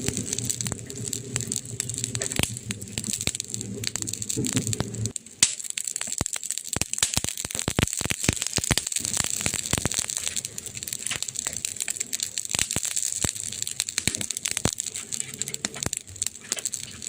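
Wood fire crackling, with many sharp pops and snaps over a steady hiss. A low rumble runs under it for about the first five seconds and then stops; the pops come thickest just after that.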